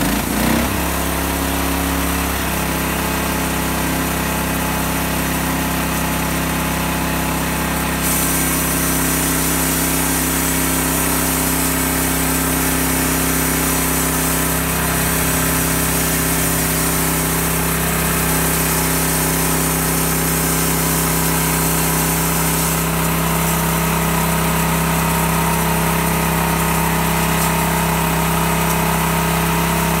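Small engine of a homemade bandsaw sawmill running steadily. Its pitch shifts and settles about two seconds in, and a higher hiss joins it from about eight seconds in until near the three-quarter mark.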